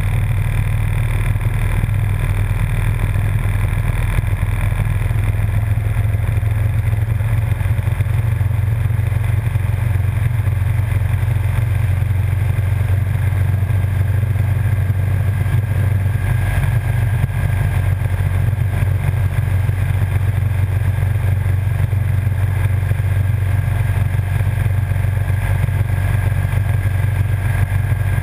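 Motorcycle cruising at a steady speed on the open road: a constant low rumble of engine, tyres and wind buffeting the microphone, with no change in revs.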